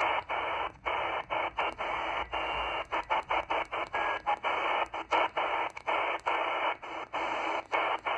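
XHDATA D-808 portable shortwave receiver hissing with band noise in upper-sideband mode while being tuned step by step up the 20-meter ham band. The hiss is cut by a short mute about three or four times a second, one for each tuning step; this is the DSP receiver's muting while tuning. A faint whistle of a weak carrier comes through briefly.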